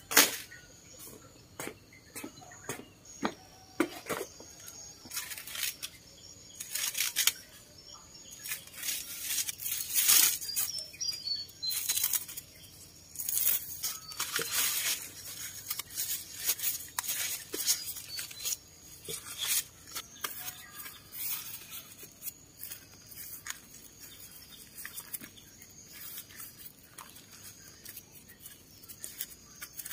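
Dry corn husks rustling and crackling in irregular bursts as dried corn ears are handled and their husks pulled back and bunched for tying. A sharp, louder rustle comes right at the start, and the handling is busiest in the first half.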